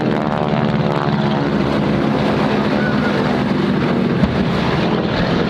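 Aerobatic airplane's engine droning loudly and steadily as it makes a low pass. A short low thump about four seconds in, from a pyrotechnic blast.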